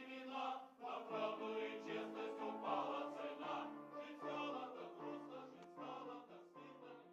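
Music with a choir singing in harmony, the notes changing together in a steady pulse; it fades out gradually toward the end.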